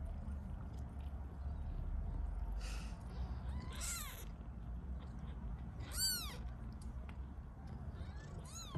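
A tiny kitten mewing three times, high thin calls about two seconds apart, each rising then falling in pitch, over a low steady rumble.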